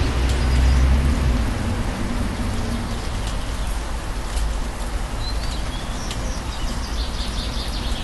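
Steady rain falling, a dense even patter. A low rumble fades out about a second and a half in, and a few short high bird chirps come through near the start and again about five to seven seconds in.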